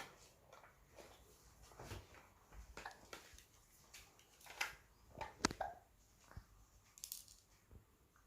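A baby hiccuping, faint short sudden sounds roughly every two and a half seconds, among small clicks and taps.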